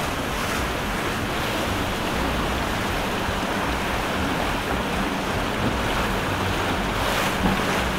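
Steady rush and splash of choppy water from a passing boat's wake and spray, with wind buffeting the microphone. Under it is a faint steady hum from the center-console boat's twin Yamaha outboards running past.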